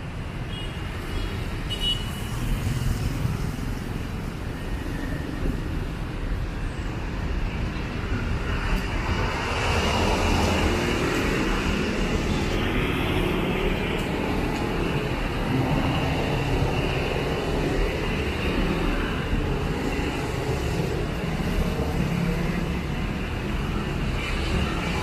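Road traffic running past on a city street in a steady wash of engine and tyre noise, swelling louder about ten seconds in as vehicles pass close.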